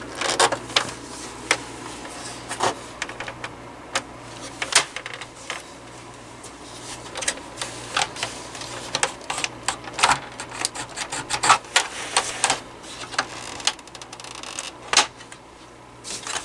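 Irregular clicks, taps and knocks of hard plastic as the brittle plastic grille and housing of a Honeywell HW-690 window fan are gripped, pressed and pulled at to work them loose.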